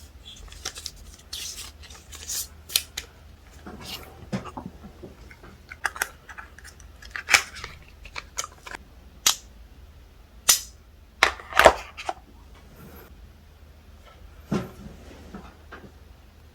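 Packaging of an Apple Watch charger being opened by hand: cardboard and paper handled in a string of irregular sharp clicks, taps and short rustles, the loudest about 7, 10 and 11 seconds in.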